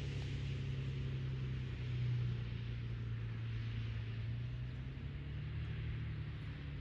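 A steady low hum with a soft hiss over it, swelling slightly about two seconds in.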